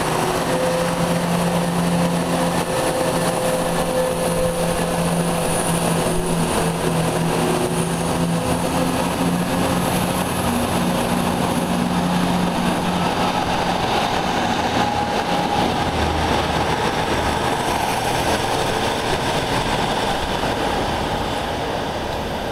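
Diesel multiple-unit trains at a station: underfloor diesel engines running with a steady low drone for the first half, which then gives way to an even noise of the train moving.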